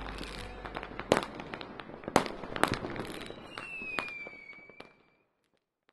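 Fireworks going off: several sharp bangs about a second apart over crackling, with a high whistle falling slightly in pitch near the end. The sound fades out shortly before the end.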